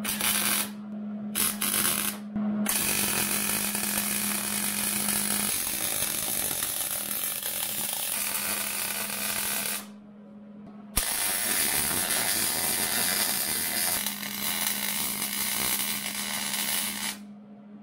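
MIG welder crackling as it lays beads on steel: two short tacks, then two long runs of several seconds each with a break of about a second between them. A steady low hum runs underneath.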